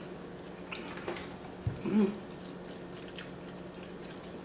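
Quiet eating sounds: a few light fork clicks and chewing as rice is eaten, with a brief hummed "mm" about two seconds in.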